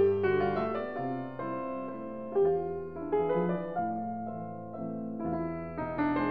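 Background piano music, a slow sequence of sustained notes and chords.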